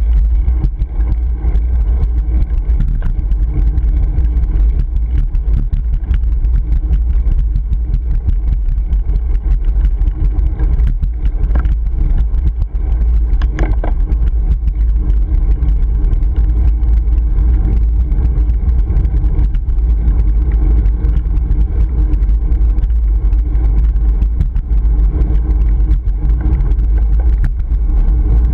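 Wind buffeting a GoPro Hero 3's microphone on a moving bicycle: a loud, steady low rumble.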